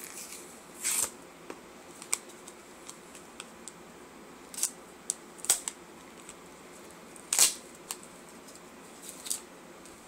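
Zippo lighter insert being worked on by hand: irregular small metal clicks and ticks, with several short scraping sounds spaced a second or more apart.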